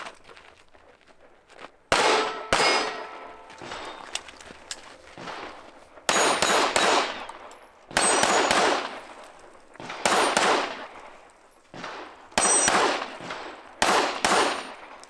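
Pistol shots fired in quick pairs every couple of seconds at steel targets, each hit clanging and ringing off the plate.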